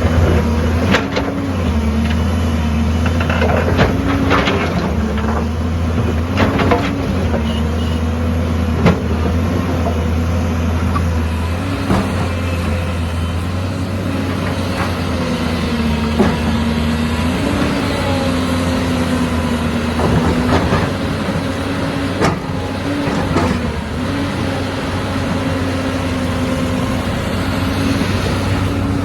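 Heavy construction machine's engine running steadily under load, its pitch rising briefly several times, with scattered sharp clanks and knocks.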